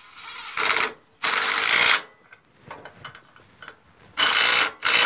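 Cordless impact driver running in and hammering on the valve cover bolts of a Briggs & Stratton engine. It goes in four short bursts, two about a second in and two near the end, each under a second, kept brief so as not to overtighten and break the bolts.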